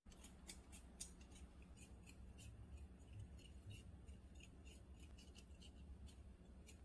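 Kitchen knife blade scraping the bumps off a cucumber's skin: a quick run of faint, short, scratchy strokes, several a second.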